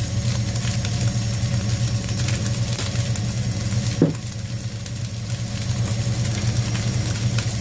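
Steady low hum of a washing machine running, with faint sizzling of rice frying in a pot and one brief knock about four seconds in.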